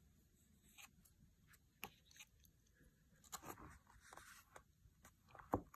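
Faint rustling and soft clicks of paper pages being turned in a book, with a sharper tap just before the end.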